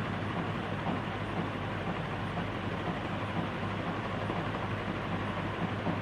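48-inch CMC CF-101 industrial ceiling fan running steadily: an even rush of air over a low motor hum.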